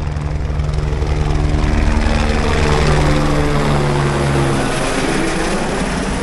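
Helicopter flying low overhead, its rotor beating steadily. It grows louder to a peak a couple of seconds in, then drops in pitch and fades as it passes away.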